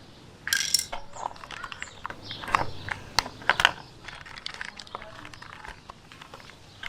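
Scattered sharp clacks and clattering of hard objects striking a hard surface, irregular in timing, with a cluster of louder clacks about two and a half to four seconds in.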